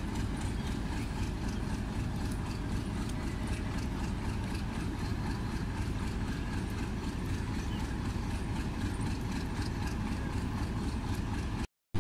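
Diesel locomotive engine running steadily as the passenger train pulls slowly out, a continuous low rumble. The sound cuts out for a moment just before the end.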